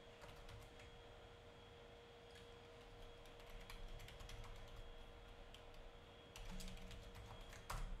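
Typing on a computer keyboard: faint key clicks in uneven runs, with a louder keystroke near the end.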